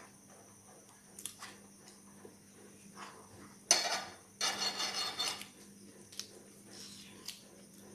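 A metal serving spoon knocking and scraping on plates and food containers: one sharp clink about four seconds in, then about a second of scraping, with a few light clicks of dishes around it.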